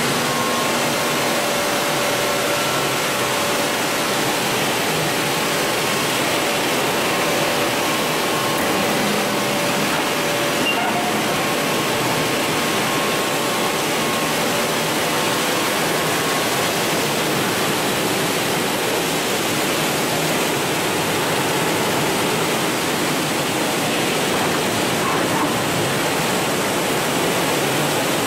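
A Julun SPG automatic granite polishing line running: a steady, even rushing noise, with faint humming tones that fade out about halfway through.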